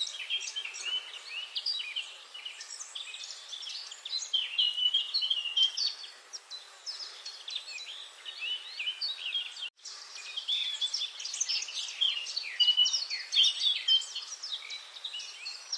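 A chorus of many small birds chirping at once, with dense overlapping high chirps and short trills. The sound cuts out for an instant about ten seconds in.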